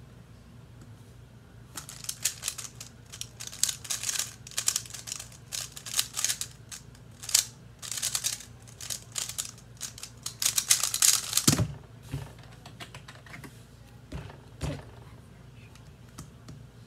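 A 3x3 speed cube being turned very fast in a speedsolve: dense rapid clicking and clattering of the plastic layers for about ten seconds. It ends in a thump, followed by a few lighter knocks as the cube is handled.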